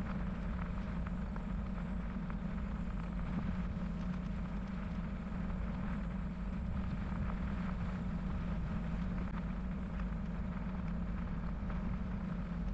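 Steady riding noise of a bicycle rolling along a wet crushed-limestone trail, with faint scattered ticks of grit under the tyres.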